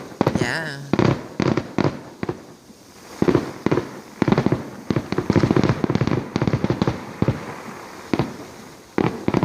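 Fireworks display going off: rapid clusters of bangs and crackles, one after another, with short lulls between the volleys.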